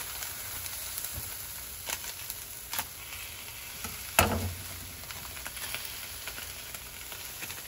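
Zucchini sizzling in olive oil in a frying pan, a steady hiss, with a few sharp clicks, the loudest about four seconds in.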